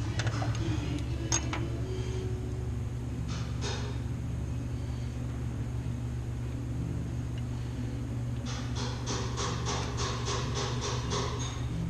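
Clicks and taps of hand work on a truck's wiring harness over a steady low hum, with a run of about a dozen even clicks, about four a second, near the end.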